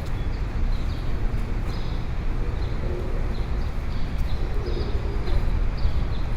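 Busy city street ambience: a steady low traffic rumble under a wash of street noise, with short high chirps recurring throughout.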